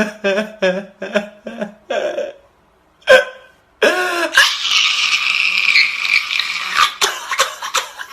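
A man's voice in a quick run of short, pitched bursts (coughing or laughing), then a steady hiss for about four seconds.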